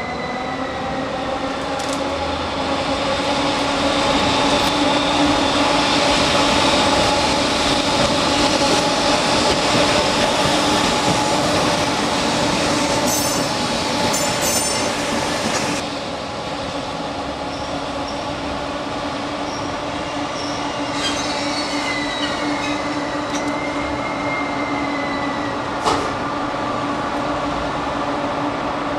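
JNR Class EF64 electric locomotive running slowly past at close range, a steady hum over a rolling rumble, with wheel squeal on curved track at the start and again near the end. A cluster of sharp clicks comes from the wheels over rail joints about halfway through, and there is one sharp knock near the end.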